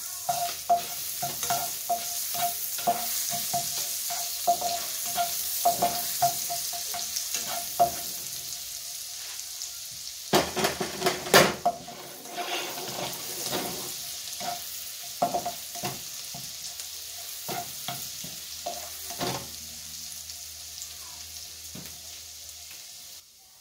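Minced garlic sizzling in hot butter in a nonstick frying pan, stirred with a plastic slotted spatula that scrapes and taps against the pan. The stirring is busiest in the first half, with a loud flurry of scrapes a little before the middle, then thins out while the sizzle goes on.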